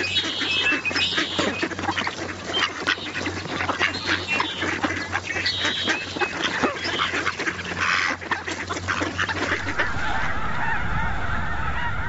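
A dense din of many ducks quacking and calling over one another. About ten seconds in it gives way to a thick, continuous chorus of a large flock of snow geese honking.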